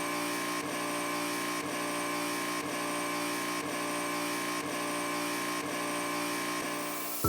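Background music: a sustained, unchanging chord with a soft beat about once a second.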